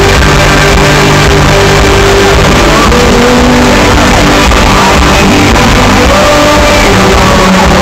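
Live rock band playing with a crowd singing and shouting along, recorded on a phone or small camera close to the loudspeakers so the sound is heavily distorted and overloaded.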